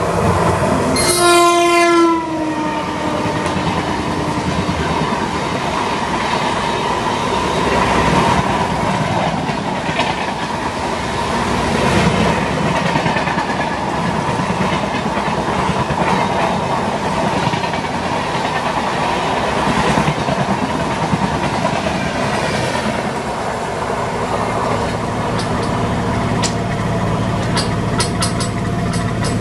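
An Indian Railways WAP-7 electric locomotive sounds one horn blast of about a second as it passes on the next track, the horn dropping in pitch as it goes by. Then comes the long, steady rumble and wheel clatter of its passenger coaches rushing past, with sharper wheel clicks near the end.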